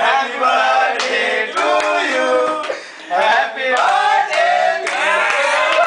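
A group of young men's voices shouting and singing together, loud and overlapping, with two short breaks.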